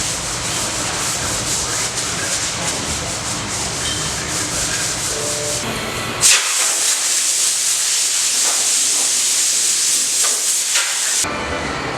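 Sandpaper rubbing over body filler and primer on a car hood, block sanding: a steady scratchy hiss that starts abruptly about six seconds in and stops suddenly about a second before the end. Before it comes a fuller, busier mix of sound.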